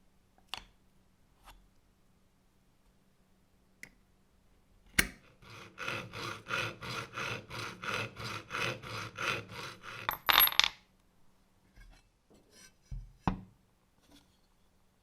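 Quick, even rubbing or scraping strokes, about four a second for some five seconds, as in hand filing, sanding or sharpening. A sharp knock comes just before them, a brief bright metallic clatter ends them, and a single knock follows a few seconds later.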